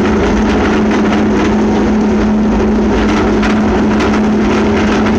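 Worm-gear elevator of a port crane climbing, heard from inside the car: a steady drive hum under a dense, continuous rattle. It is quite noisy and very rattly.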